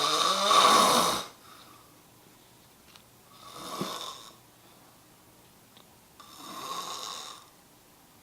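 A sleeping man snoring: three snores about three seconds apart, the first the loudest.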